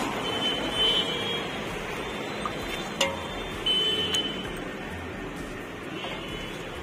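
Steel ladle dipping into and knocking against a large pot of tarri gravy over steady street-stall noise, with one sharp clink about three seconds in. Two short high steady tones sound near the start and around the middle.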